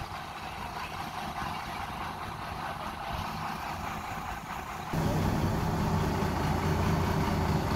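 Dump truck engine running low and steady, then about five seconds in it suddenly steps up to a louder, steady higher-revving run as the hydraulic hoist lifts the loaded bed to tip the sand.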